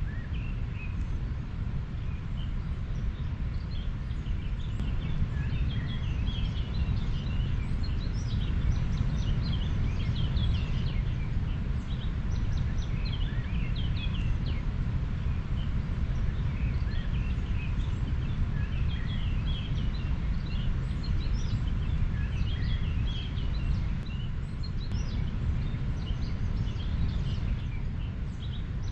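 River flowing with a steady low rush, with small birds chirping in many short, quick notes over it.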